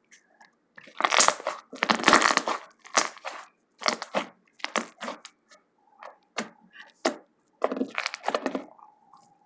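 Hands squeezing and pressing slime: a run of crackly, squishing bursts, loud and irregular, about eight or nine squeezes in all.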